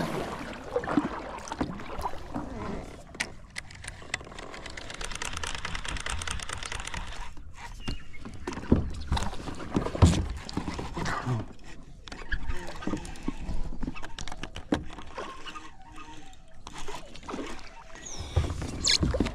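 Kayak paddle strokes: water splashing and dripping off the paddle blades, with scattered knocks and clicks.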